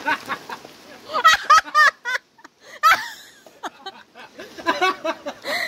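Excited, high-pitched voices calling out and laughing in short bursts, with a few sharp knocks.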